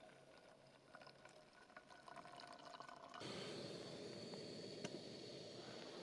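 Faint trickling and dripping water with small scattered ticks, then a sudden change about three seconds in to a louder, steady hiss.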